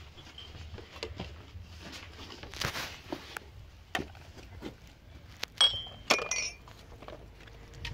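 Light knocks and clinks of hard objects being handled, with two sharp ringing clinks about five and a half and six seconds in.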